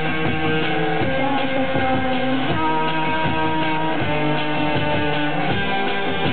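Live cold-wave/electro-punk band music: an electric guitar strummed over a steady electronic beat and synthesizer.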